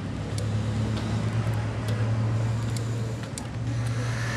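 Steady low hum of a running motor, with a few light clicks.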